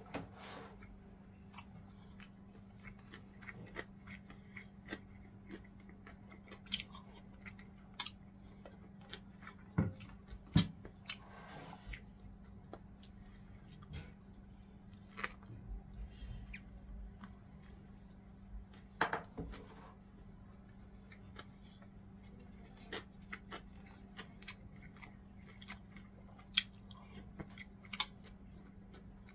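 Close-miked chewing and mouth sounds of someone eating gimbap and fish cake soup: irregular soft clicks, with a few louder ones, over a steady low hum.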